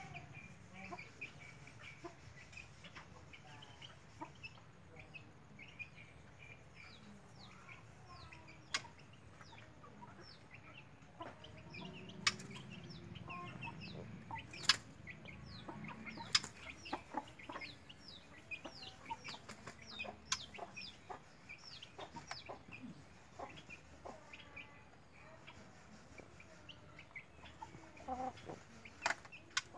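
A 21-day-old murai batu (white-rumped shama) chick giving runs of quick, high, downward-sliding chirps, the begging calls of a young bird learning to feed. A few sharp clicks are scattered through.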